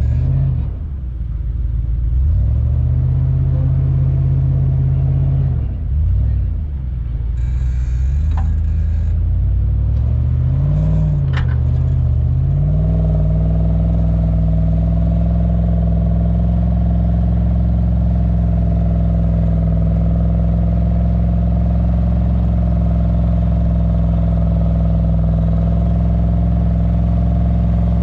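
Engine of a 4x4 towing a stuck pickup through soft sand on a recovery strap, revs rising and falling for about the first dozen seconds, then held high and steady under load. A couple of sharp clicks about eight and eleven seconds in.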